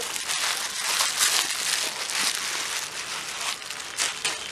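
Plastic bubble wrap crinkling and rustling as it is handled and unwrapped, an irregular run of crackles with a sharp click at the start.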